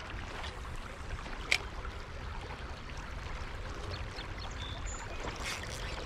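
Shallow creek water running over rocks, a steady rushing wash, with one sharp click about a second and a half in.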